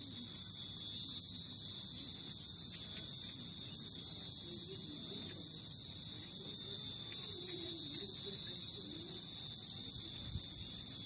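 Steady high-pitched drone of summer cicadas, one layer higher than the other, with no breaks.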